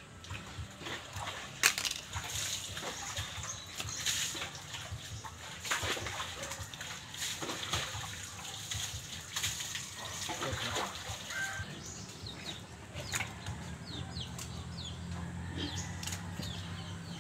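Knife and hands scraping the scalded hair off a piglet carcass, with water splashing from the basin of hot water it is dipped in: irregular rough scrapes and wet slaps.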